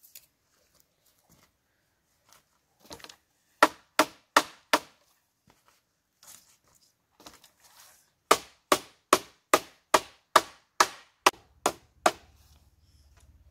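Sharp blows of a hand tool on bamboo: four quick strikes, a pause, then a run of about ten evenly spaced strikes at roughly two or three a second.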